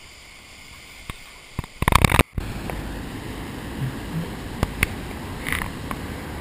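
Steady rush of floodwater on a swollen creek. About two seconds in there is a loud crackling burst and a very brief dropout. After it the rush goes on louder, with a few scattered clicks.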